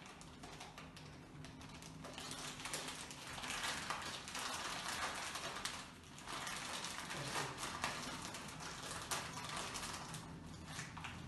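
Plastic zip-lock bag crinkling and rustling in gloved hands, with many small irregular clicks, as the disinfected goggles are packed into it and sealed.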